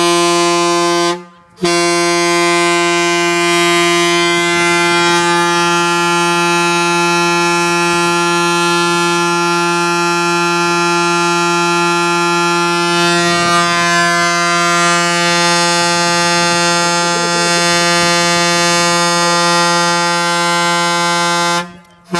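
Loud diesel truck air horn blowing: a short blast, a brief break just over a second in, then one long steady blast of about twenty seconds that cuts off near the end.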